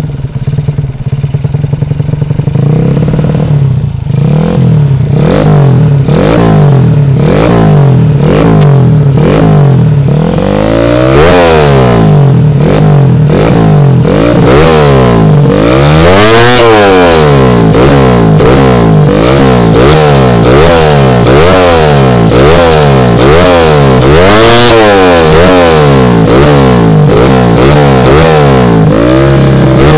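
Tuned Suzuki Shogun four-stroke single-cylinder engine with an aftermarket exhaust, free-revved on the stand: short throttle blips about once a second, with a few higher, longer revs in between, dropping back to idle each time.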